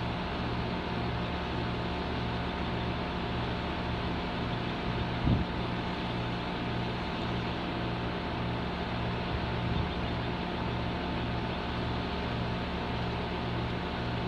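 A compressor running steadily: an even mechanical hum with a low throb that pulses about two to three times a second. A brief thump comes about five seconds in, and a fainter one near ten seconds.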